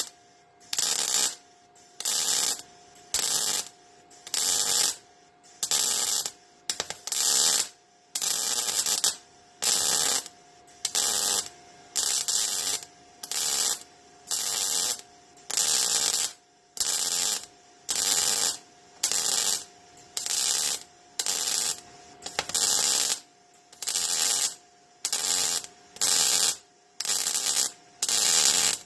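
Welder's arc crackling in short bursts about once a second, stitch-welding sheet steel on a Triumph TR7's body, with a faint steady hum underneath.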